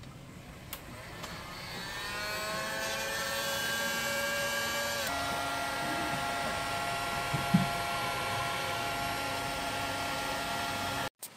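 Makita electric heat gun running: its fan-motor whine rises as it spins up over the first couple of seconds, then holds steady. The pitch shifts abruptly about five seconds in, there is one brief knock a couple of seconds later, and the sound cuts off just before the end.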